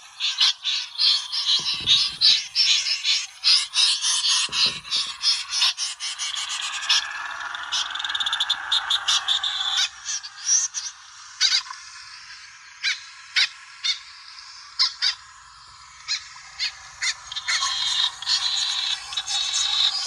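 Snipe calls from a trapping lure recording: fast runs of short, sharp, high notes that thin out in the middle and grow busy again near the end. Two low thumps come in the first few seconds.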